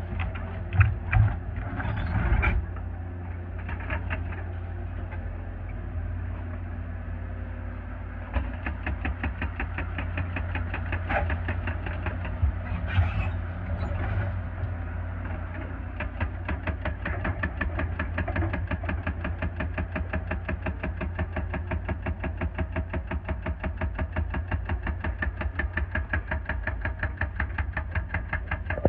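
Mini excavator engine running steadily, with a few sharp knocks in the first three seconds and another about halfway through; from a little past halfway its running turns into a fast, even pulsing.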